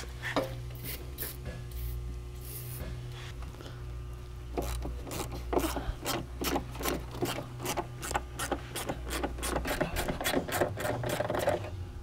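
Penetrating oil sprayed from an aerosol can in a few short hisses. From about halfway in, a socket ratchet clicks steadily at about four clicks a second as the engine computer's mounting bolts are worked loose.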